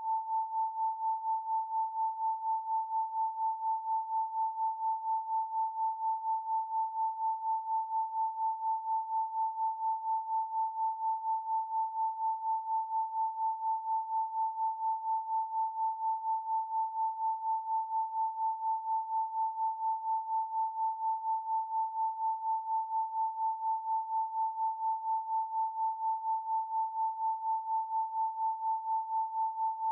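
Electronically generated 888 Hz pure sine tone, held at one steady pitch, its loudness pulsing evenly a few times a second.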